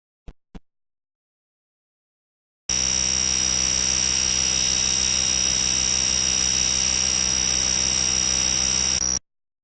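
Two short clicks, then a fire alarm sounds one steady, high-pitched tone for about six and a half seconds and cuts off suddenly.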